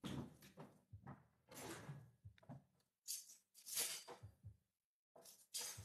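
Several short rustles and knocks of things being handled in a kitchen, about five separate bursts with gaps between them.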